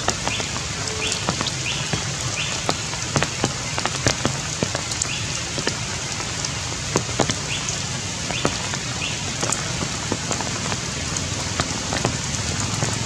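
Steady rain falling, an even hiss with many scattered drop ticks, and a few brief high chirps now and then.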